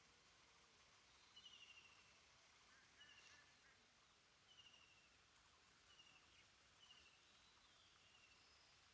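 Faint pond-side ambience: a steady high insect drone, with a bird's short, falling chirp repeated every second or so.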